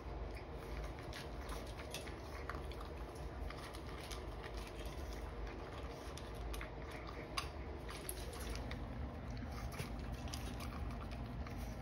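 Pug puppy eating dry kibble from a stainless steel bowl: faint, irregular crunching and small clicks, with one sharper click about seven seconds in.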